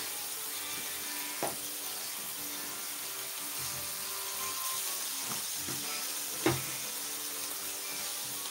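Rump steaks sizzling steadily in a hot ridged grill pan, searing on their second side. Two sharp knocks cut through, one about a second and a half in and a louder one near six and a half seconds.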